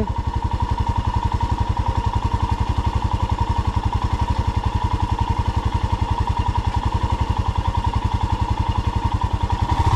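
A motorcycle engine idling, an even, rapid thumping at about ten beats a second, with a faint steady whine over it.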